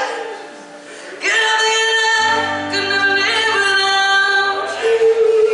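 Woman singing a country song live, backed by acoustic guitar and fiddle, holding long notes. The voice drops away briefly near the start, then comes back in.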